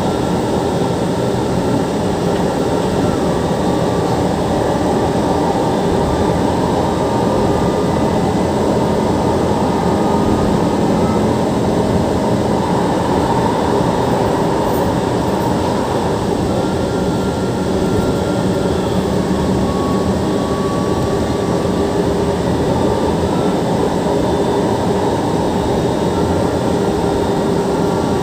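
MRT-3 light rail train running along the track, heard from inside the car: a steady, continuous rumble of wheels on rail, with faint whining tones that step up and down in pitch now and then.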